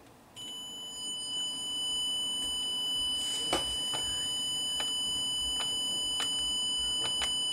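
Steady high-pitched electronic tone from a small test speaker driven by the SainSmart DDS140's signal generator, coming on about half a second in. A few faint clicks sound over it.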